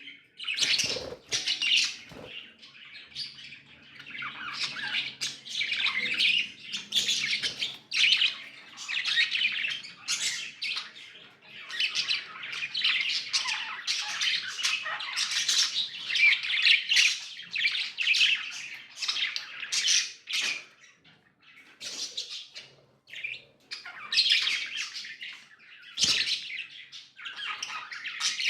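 Pet budgies (budgerigars) chattering and chirping in a busy, almost unbroken warble, with a couple of short pauses past the middle and a few sharp clicks.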